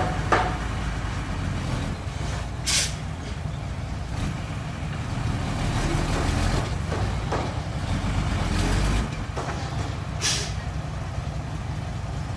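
Heavy diesel engine of a dump truck running steadily, with two short, sharp hisses: one about three seconds in and one about ten seconds in.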